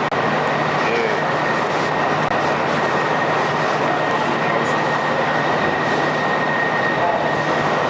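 Steady, loud machinery noise with a constant high whine and a low hum running through it.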